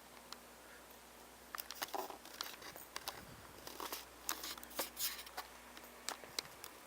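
Faint rustling and scattered small clicks from a hand-held camera being handled and from clothing as people creep quietly, with a few slightly louder rustles around two seconds in and again around four to five seconds in.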